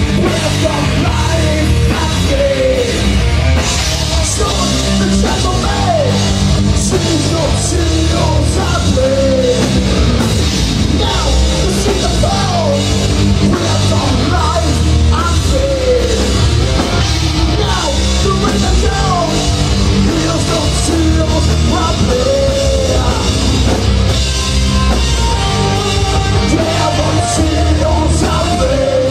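Live metal band playing: electric guitars, bass guitar and drum kit, with a vocalist singing into the microphone over them.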